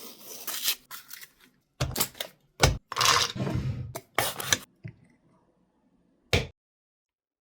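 Food-preparation handling sounds: several separate scrapes and rubs, the loudest about three seconds in, with a short knock just before it and another burst about six seconds in.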